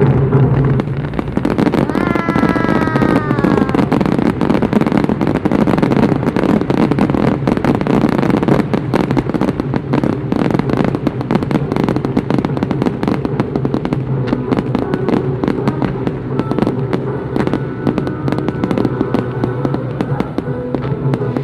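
Fireworks crackling densely, a rapid stream of small pops and bangs, with music playing underneath. A short falling tone sounds about two seconds in.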